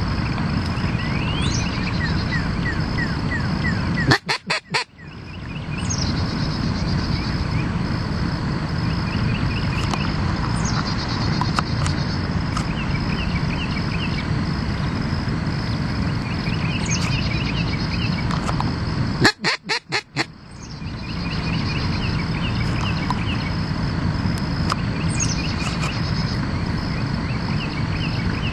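Hen blue-winged teal duck call blown in quick runs of about six sharp quacks, twice: about four seconds in and again about nineteen seconds in. A steady background noise runs underneath.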